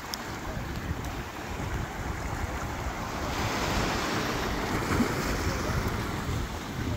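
Small waves washing up and drawing back on a coarse sand beach. A surge swells about halfway through and fades near the end, with wind rumbling on the microphone.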